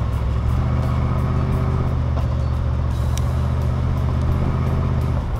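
1995 Chevy Tahoe's V8 engine and exhaust running steadily under light load as the truck drives along a dirt trail, with the tires rolling over the dirt.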